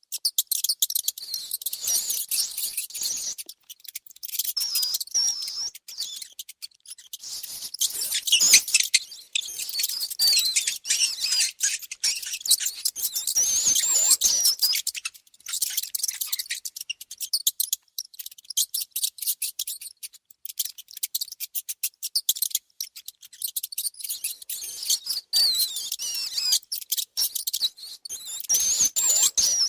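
Mice squeaking: high, wavering squeaks that come in clusters, over a busy patter of rapid tiny clicks and scratches. For a stretch in the middle only the clicking is heard.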